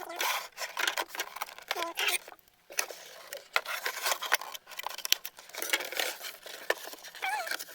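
Hands unpacking a plastic toy doctor's kit from its box: a busy run of clicks, taps and scratchy rustles of plastic and packaging, with a brief lull about two and a half seconds in and a few short squeaks.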